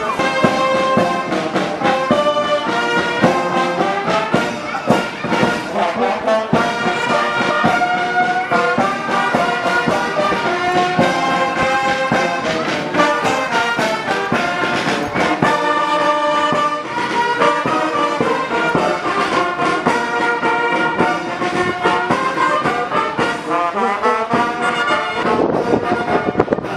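Brass band music: trombones and trumpets playing a tune over a steady drum beat.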